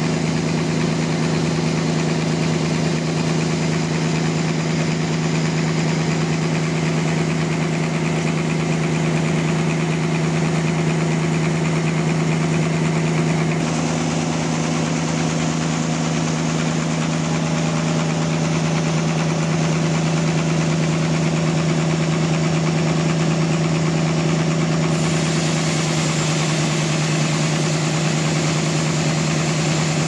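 Band sawmill running steadily while its blade saws through a trembesi (rain tree) log: a loud, even machine hum with a strong low tone. The tone shifts slightly about halfway and again near the end.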